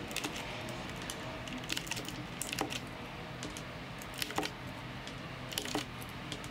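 Keycaps being pulled off a HyperX Alloy FPS mechanical keyboard by hand: scattered sharp plastic clicks and snaps, coming in small clusters every second or so.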